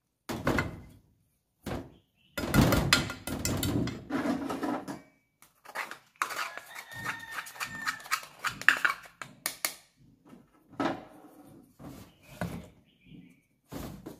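Small metal cup knocked and scraped against a stainless steel mixing bowl to empty out mashed salted egg yolk that sticks to the cup: a run of knocks, clinks and scraping, some with a brief metallic ring.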